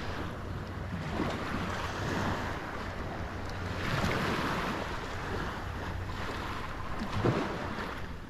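Wind buffeting the microphone over small waves lapping in shallow surf, swelling and easing, with one short louder buffet about seven seconds in.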